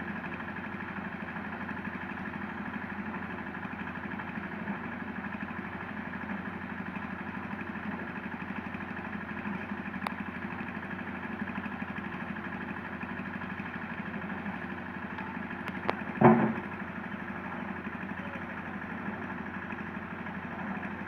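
Hitachi Zaxis 200 long-arm excavator's diesel engine running steadily, with a single loud knock about three-quarters of the way through.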